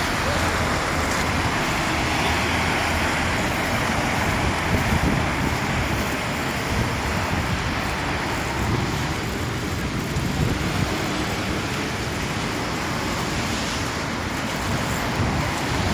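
Steady street traffic noise on a wet road: tyre hiss from passing cars, strongest in the first half and easing after the middle, over a low rumble.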